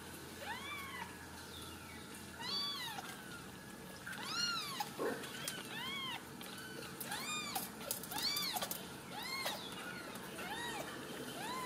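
Young Ragdoll kittens mewing over and over, about a dozen high, thin cries, each rising and then falling in pitch, roughly one a second.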